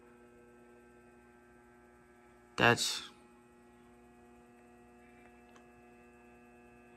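Faint, steady electrical mains hum: a low buzz of several even tones that holds unchanged throughout.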